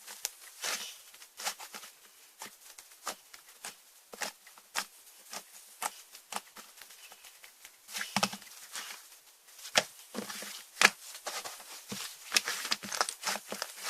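Slime being squished and pressed by hand, making irregular sharp clicks and pops, coming thicker near the end.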